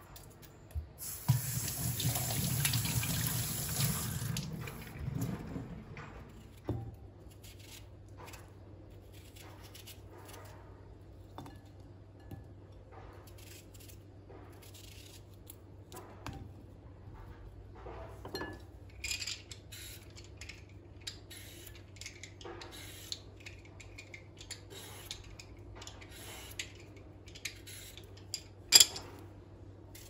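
Kitchen tap running for a few seconds over a peeled boiled egg as it is rinsed, then shut off. After that, soft scattered clicks and knocks as cucumber pieces are handled and put into a ceramic bowl, with one sharp knock near the end.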